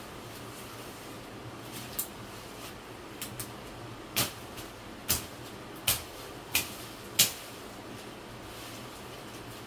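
Sharp snaps or knocks from a person working at ground covered with dry leaves and twigs: a few small ones, then about five stronger ones a little under a second apart, the last the loudest, over a steady background hiss.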